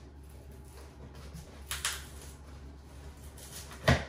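The car seat's box and packaging being handled while it is unpacked: a short scraping rustle about halfway through, then a sharp knock near the end, over a low steady hum.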